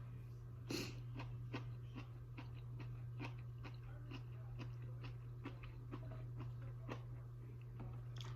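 A person chewing food close to the microphone: a run of small mouth clicks, about three a second, with a louder click a little under a second in. A steady low hum runs underneath.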